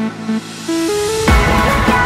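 Background electronic music: a sparse passage with a short rising run of single notes, then the full beat with heavy bass comes back in a little past halfway.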